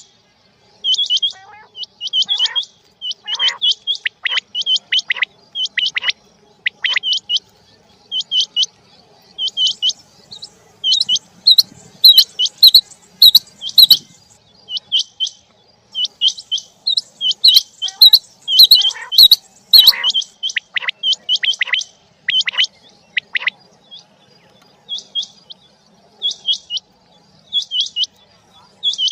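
Quail calling: short, sharp high-pitched calls repeated in quick groups of a few notes, over and over.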